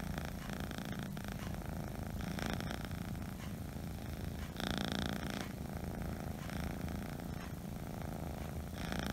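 A Scottish Straight kitten purring steadily close to the microphone, swelling louder briefly about five seconds in.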